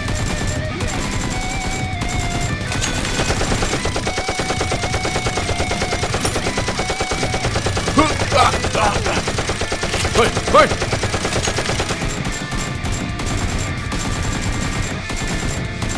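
Rapid automatic gunfire sound effects in long bursts over background music, with a couple of short shouts about halfway through.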